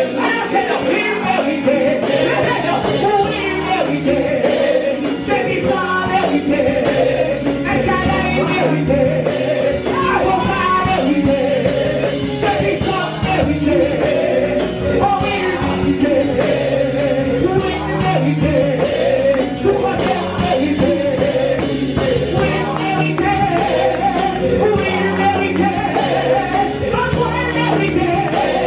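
Worship music: singing over a live band accompaniment, loud and unbroken.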